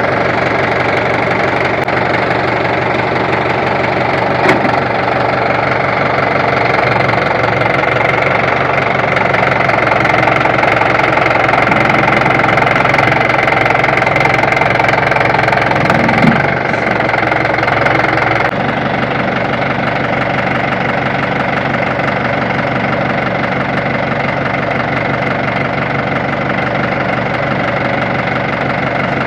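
Jeep engine running steadily near idle; its note shifts slightly about two-thirds of the way through.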